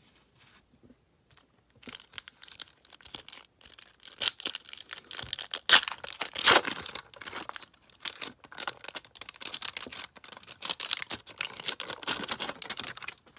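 A basketball card pack's wrapper being torn open and crinkled, in a run of crackling rips, loudest about six seconds in.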